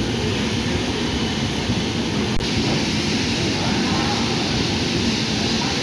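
Steady running rumble of the Bihar Sampark Kranti Express passenger train, its wheels rolling on the rails, heard from inside the coach as it moves through a station. A single sharp click comes about two and a half seconds in.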